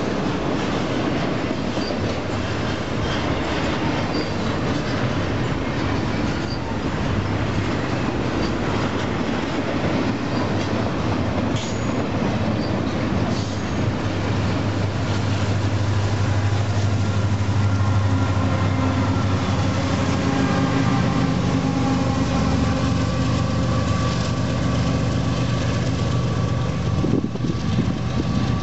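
Double-stack container cars of a Union Pacific intermodal freight train rolling past close by: a steady, loud rumble of steel wheels on rail. A steady low hum grows stronger in the second half.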